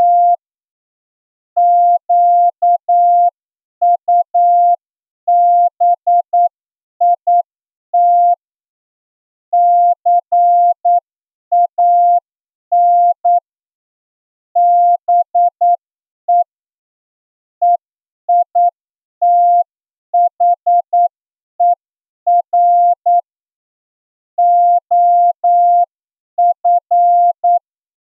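Morse code keyed as a single steady mid-pitched tone switching on and off in dots and dashes, sent at 8 words per minute: a plain-language receiving-test passage for an amateur radio licence exam.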